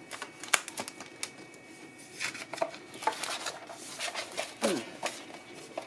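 Shrink-wrapped cardboard token sheets being handled and lifted out of a cardboard game box: plastic wrap crinkling, cardboard sliding and scraping, and irregular clicks and taps.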